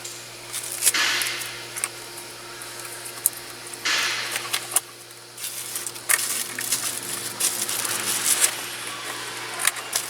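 Steering wheel being worked off the steering column by hand: scattered clicks and knocks with short bursts of rustling and scraping, over a faint steady hum.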